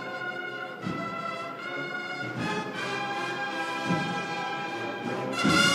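Brass band playing a slow processional march, sustained chords changing about once a second over bass drum strokes about every second and a half; the music swells louder near the end.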